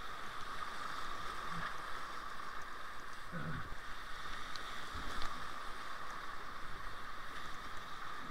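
Creek whitewater rushing steadily around a kayak as it runs a small rapid, with a brief knock about five seconds in.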